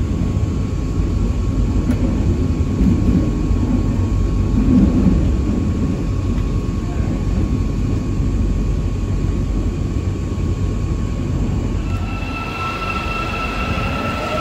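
Steady low rumble of a train heard from inside while riding. About twelve seconds in it gives way to a metro train at an underground platform pulling out, its electric traction motors whining in several tones that rise as it accelerates.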